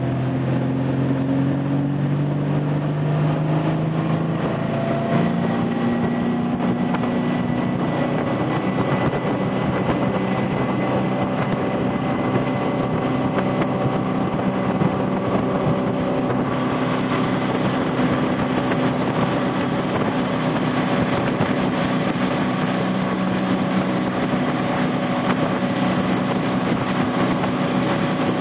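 Towboat engine pulling a barefoot water skier, its pitch climbing over the first few seconds as the boat speeds up, then holding steady, over a steady rush of water spray and wind.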